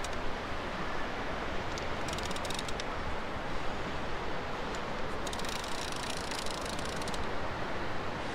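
Steady wind and surf noise, with two runs of rapid fine clicking: one about two seconds in, and a longer one from about five to seven seconds.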